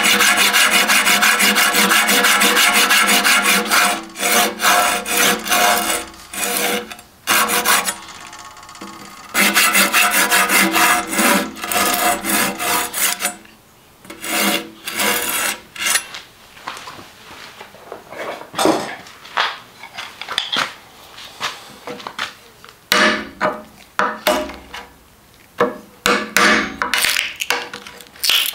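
A coarse-toothed hand pruning saw is cutting into a hackberry bow stave held in a vise. It makes fast back-and-forth rasping strokes in bursts with short pauses, then slower separate strokes. Near the end a chisel chips out wood between the saw cuts.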